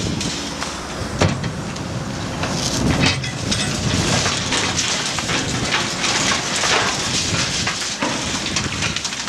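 Cat 314D LCR excavator running while its hydraulic demolition shear works through broken concrete and reinforcing steel: a steady crackle of crunching concrete with many sharp knocks and clatters of falling debris.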